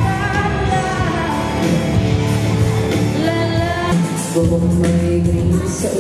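A woman singing a pop song over backing music with a steady bass line.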